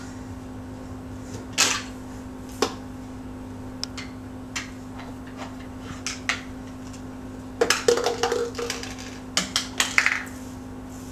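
Plastic sippy cups, bottles and lids clattering and knocking together as a toddler rummages through a drawer of them: scattered single clicks, then a busier run of clatter in the second half.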